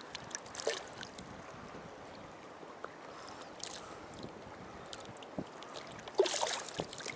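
Small waves lapping and splashing against the hull of an inflatable packraft as it drifts, with a few short splashes and a louder spell of splashing near the end.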